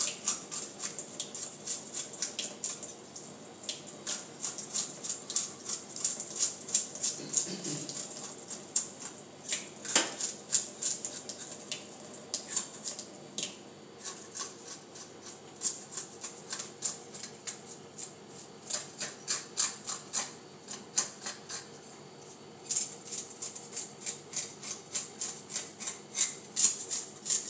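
A fork scraping scales off a whole fish: quick, sharp rasping strokes, several a second, in runs with brief pauses.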